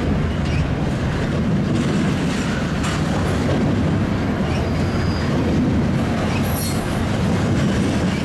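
Freight train rolling past: a steady rumble of steel wheels on rail with a few clacks and a brief, faint high wheel squeal about six and a half seconds in.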